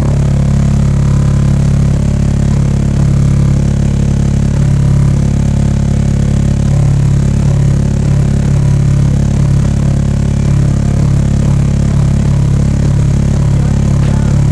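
Subwoofer playing a steady, loud, very low test tone, around 29 Hz, with the sub box buzzing and rattling along with it: the enclosure is vibrating loose at this frequency.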